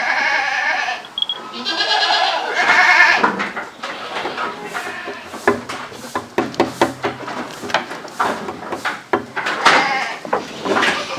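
Anglo-Nubian goats bleating: three quavering bleats in the first three seconds and another near the end. Between them comes a run of short clicks and knocks.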